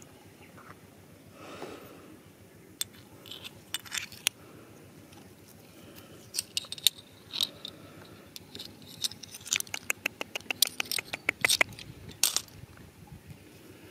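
Pebbles and loose gravel clicking and scraping as a bare hand handles stones and digs through dry, stony dirt. The clicks are sharp and irregular, and come thicker in the second half.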